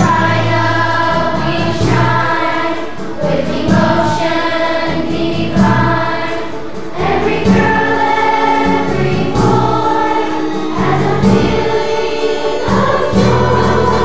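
A choir singing a song with instrumental backing and a regular bass line.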